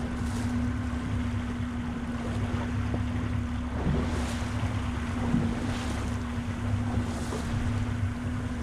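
Boat engine running steadily at trolling speed, a low drone with a constant hum. Water splashes against the hull now and then, and wind buffets the microphone.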